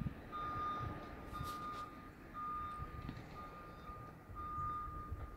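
Vehicle reversing alarm beeping, one steady high tone repeating about once a second, five beeps in a row.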